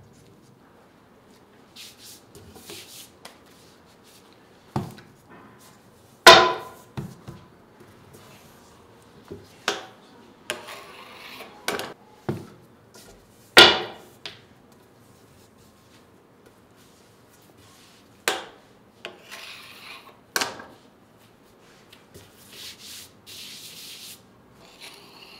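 Long wooden rolling pins knocking on a stone worktable about seven times, two of the knocks much louder, between stretches of soft rubbing and rustling as thin baklava dough sheets are rolled out and smoothed by hand.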